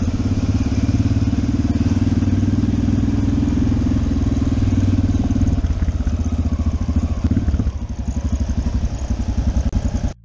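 Single-cylinder motorcycle engine pulling at low speed, heard from the rider's own bike. The note eases off about halfway through and cuts off suddenly near the end.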